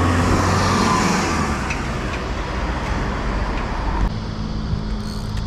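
Road traffic: a car passes close by, its tyre and engine noise loudest at the start and fading over the first couple of seconds, then steady traffic noise carries on.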